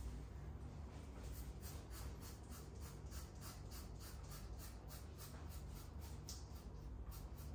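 Faint scraping of a cartridge razor drawn over a lathered scalp in short, quick strokes, a few each second.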